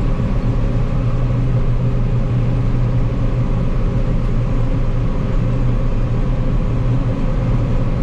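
John Deere 9560 STS combine running steadily while harvesting barley, heard from inside the cab: a constant low drone of the diesel engine and threshing machinery.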